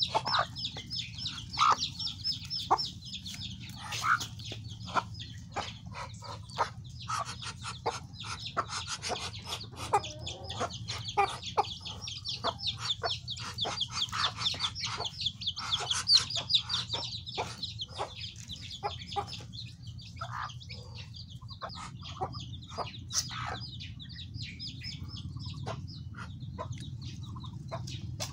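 Chicks peeping in quick, high calls almost without a break, with short clucks from a hen feeding among them.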